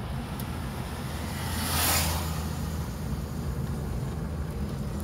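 Steady low road and engine rumble of a car driving, heard from inside the cabin, with a brief rushing whoosh that swells and fades about two seconds in.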